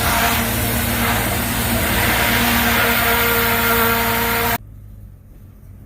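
Pressure washer running steadily: an engine hum under a loud hiss of spray. It cuts off abruptly about four and a half seconds in, leaving faint wind.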